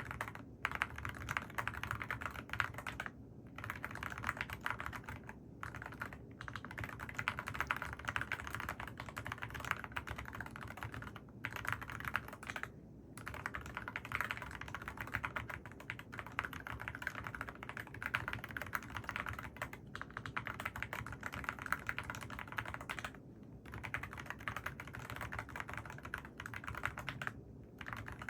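Mechanical keyboard with AKKO Rosewood switches being typed on continuously: a quick, steady run of keystrokes broken by a few brief pauses.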